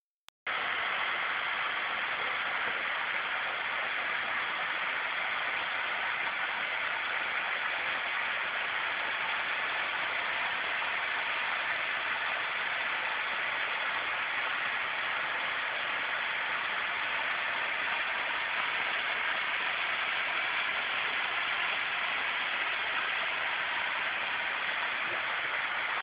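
Waterfall: a steady, even rush of falling water that starts suddenly about half a second in and holds at one level.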